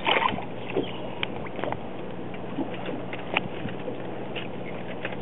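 Boat engine running with a steady low hum, under scattered short clicks and knocks and a louder noisy burst at the start.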